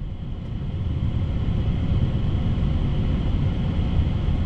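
Steady low rumble inside the cockpit of an Airbus A380 moving onto the runway: engine and rolling noise coming through the flight deck.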